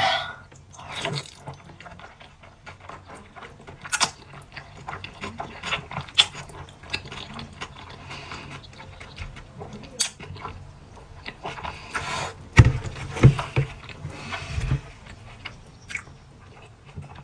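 Close-miked eating of jjajangmyeon noodles: irregular wet chewing clicks and smacks with short slurps, a little louder about twelve to fifteen seconds in.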